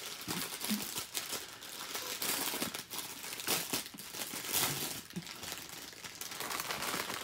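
Clear plastic packaging of a diamond painting kit, a bag holding strips of small drill packets, crinkling irregularly as it is handled.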